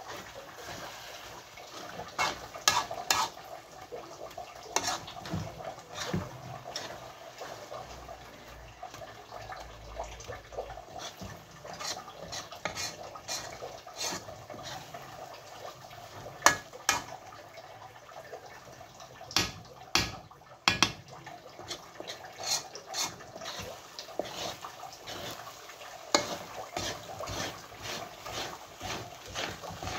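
Metal spoon stirring thick, sticky biko (glutinous rice cooking in coconut milk and sugar) in a metal wok: wet squelching and smacking of the mixture, with irregular clinks and scrapes of the spoon against the pan and several sharper knocks.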